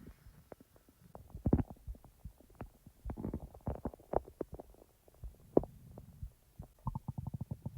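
Human stomach gurgling and rumbling as it digests: irregular low gurgles broken by sharp pops, two of them louder about one and a half and five and a half seconds in, and a fast run of small clicks near the end.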